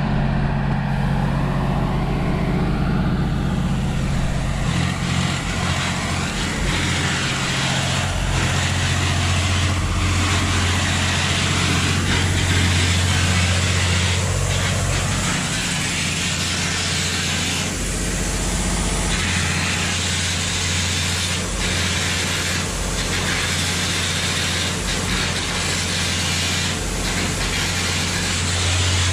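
Hitachi EX3600 mining excavator's 16-cylinder diesel engine running steadily up close: a deep, even hum under a loud rushing hiss.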